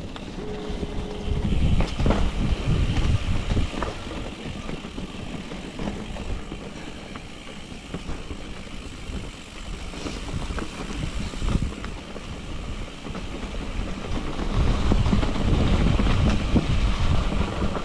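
Mountain bike riding over a rocky trail: wind rushing on the microphone with a stream of knocks and rattles from the bike, loudest about two seconds in and again near the end.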